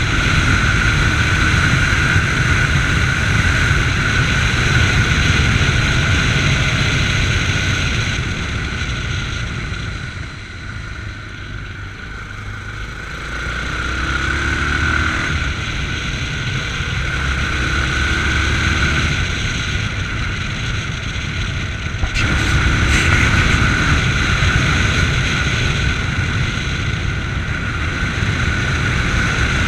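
Yamaha MT-03 motorcycle engine running under way on the road. The engine eases off for a few seconds about ten seconds in, builds again, then picks up sharply about twenty-two seconds in.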